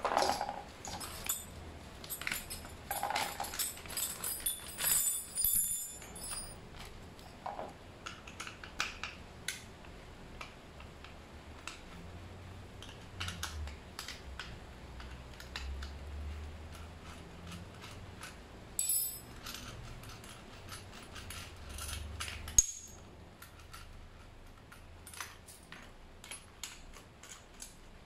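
Small metal clamp and bolt hardware clinking and rattling as a plastic safety guard is fitted to an aluminium brush-cutter shaft, with scattered knocks and handling noise. One sharp click late on is the loudest sound.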